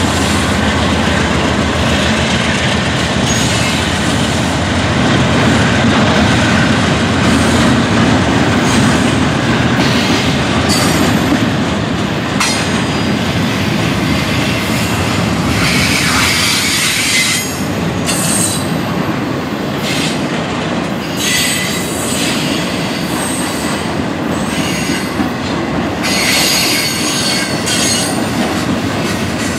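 Freight train passing close by: the GE C44-9W diesel locomotives' engines rumble in the first several seconds, then double-stack container well cars roll past with steady wheel-on-rail noise. Several brief bursts of high-pitched wheel squeal come through, strongest past the middle and near the end.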